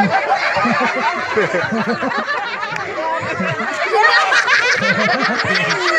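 A group of people laughing and talking over one another, the laughter getting louder about four seconds in.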